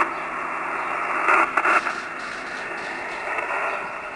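Ham radio transceiver receiving on the 17 m band in SSB mode: a steady hiss of band noise, cut off sharply as by a narrow voice filter. A few static crackles come about a second and a half in.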